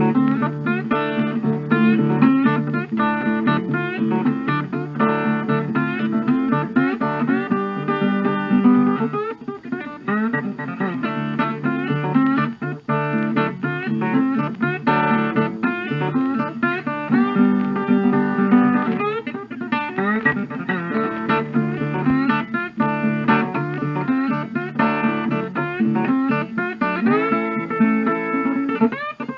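Background music: guitar played with fast picked notes and sliding pitches, in a bluesy style.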